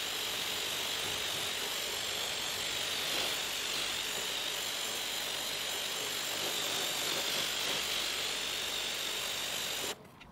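Pressure washer spraying a steady jet of water onto a honeycomb-pattern rubber car floor mat, rinsing it, then cutting off suddenly about ten seconds in.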